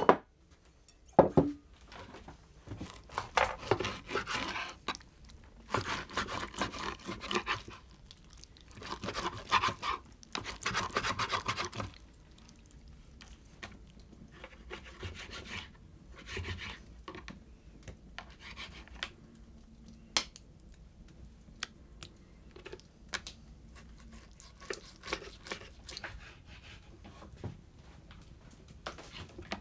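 Several stretches of rough scraping or rubbing, each lasting one to three seconds, in the first half. Scattered light knocks and clicks follow.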